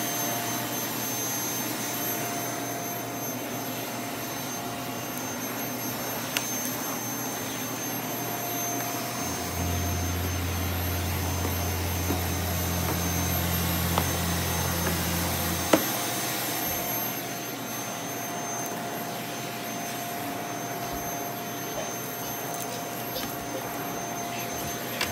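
Stick vacuum cleaner running steadily as its floor head is pushed back and forth over carpet. A low hum joins for several seconds near the middle, and there are a few light clicks.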